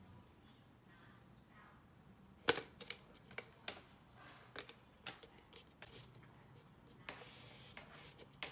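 Thin plastic yogurt tub being handled: a run of sharp clicks and cracks as a cut strip of its wall is snapped and pulled away, then a short rustle of plastic near the end.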